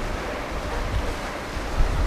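Wind buffeting the microphone in uneven gusts over a steady wash of sea surf breaking on the shore.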